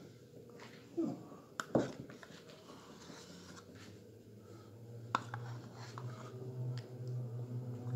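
Metal spoon scraping and clicking against the inside of a plastic spread tub, with a few sharp clicks in the first two seconds and another about five seconds in. A low steady hum comes in about halfway through and grows slightly louder toward the end.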